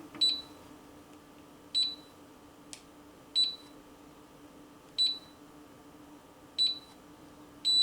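Day1 DF-45 Pro biometric safe beeping during fingerprint enrollment: five short high beeps about a second and a half apart, then a longer beep at the very end, the long beep that signals the fingerprint is set. A light click comes between the second and third beeps.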